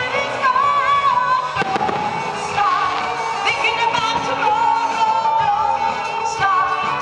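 Music with a sung melody runs throughout, with a few firework bangs from aerial shells bursting over it, one clear bang about a second and a half in.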